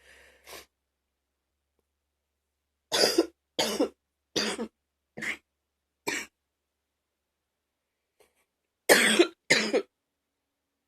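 A woman coughing: a run of five short coughs about three seconds in, then two louder, harder coughs near the end.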